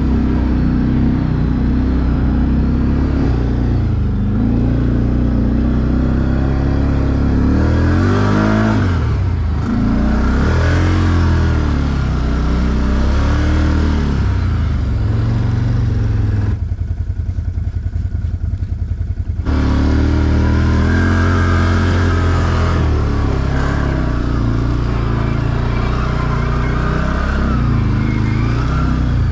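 ATV engine running under load, revving up and down. About two thirds of the way in it falls back to a low, pulsing idle for a few seconds, then picks up again.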